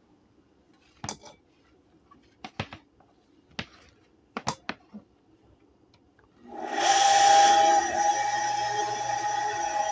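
A few sharp clicks and knocks, then about six and a half seconds in the Kawamoto N3-156SH well pump's motor starts and runs steadily with a whine over a noisy mechanical sound: the abnormal noise of a motor that runs but is faulty.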